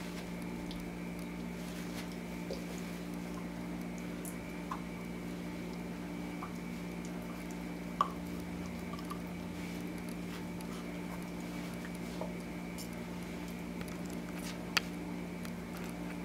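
A dog handling and mouthing its toys: scattered soft clicks and squishes, with two sharp ticks about 8 and 15 seconds in. A steady low electrical hum runs underneath.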